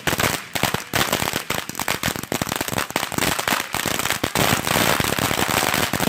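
Consumer fireworks going off: a rapid run of sharp cracks and pops that grows denser after about four seconds into a near-continuous crackle.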